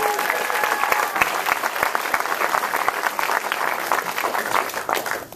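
Cinema audience applauding, with a held shout from someone in the first second; the clapping dies away at the end.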